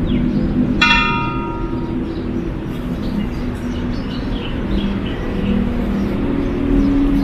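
Hanging bronze temple bell struck once about a second in, ringing with several bright pitches and fading within about a second, over a steady low background rumble.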